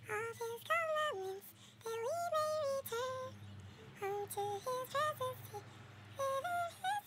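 A woman singing a slow, gentle lullaby-like song softly, in a high clear voice, with held notes and short pauses between phrases.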